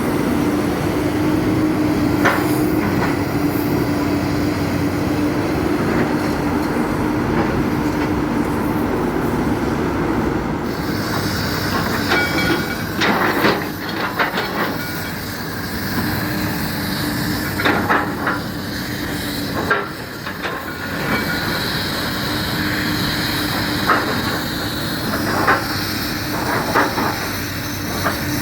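Hyundai excavator's diesel engine and hydraulics running steadily under load while the grapple works, with a constant hum and a hiss that comes in about ten seconds in. Sharp knocks and clanks of the grapple and its load come now and then, most of them in the second half.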